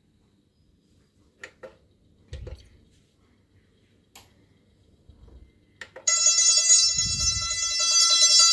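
A few light clicks, then about six seconds in music starts playing through an Onkyo TX-8522 stereo receiver on its CD input, opening with a steady held chord.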